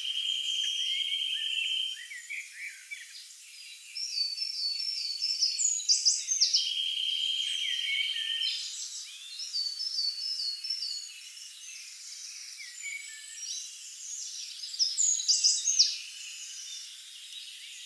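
Several songbirds singing together in woodland. A steady trill comes at the start, again around seven seconds in and again near the end, and short runs of falling high notes recur every few seconds, over a faint hiss.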